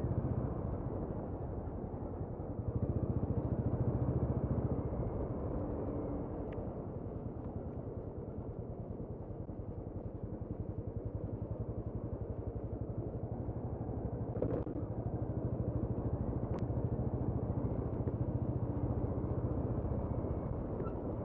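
Motorcycle engine running steadily as the bike rides along, its rumble swelling for a couple of seconds near the start.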